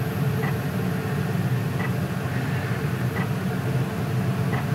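A steady low mechanical hum with a faint, regular tick about every second and a half.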